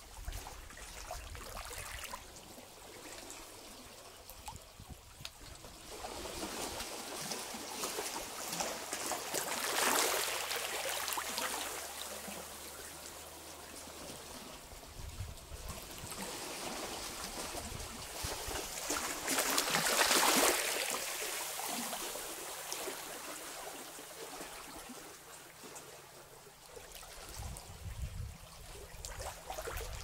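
Small sea waves washing over low rocks at the water's edge, a steady rushing and trickling that swells twice as larger wash comes in.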